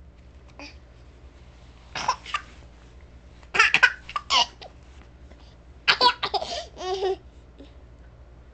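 A baby laughing in short bursts, three bouts a couple of seconds apart.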